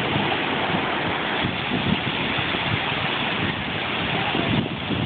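Steady rush of ocean surf breaking and washing in the shallows.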